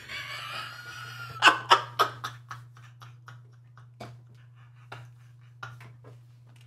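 A man's breathy, wheezing laughter: a quick run of short bursts about a second and a half in that trails off into faint breaths.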